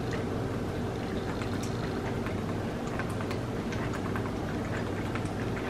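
Drinking from a plastic water bottle: faint scattered clicks of swallowing and bottle crackle over a steady hum and hiss.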